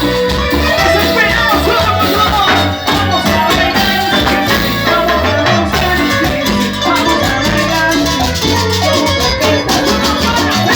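A band playing Latin dance music live through a PA sound system, with bass and a steady percussion beat.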